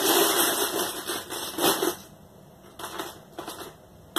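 Small plastic Snap Circuits parts clattering and clicking as they are rummaged through by hand. The clatter is dense for about two seconds, then turns to a few scattered clicks.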